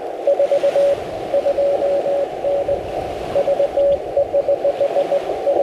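Morse code on a Yaesu FT-891 HF transceiver: a single steady mid-pitched beep keyed into quick dots and dashes, over a constant radio hiss.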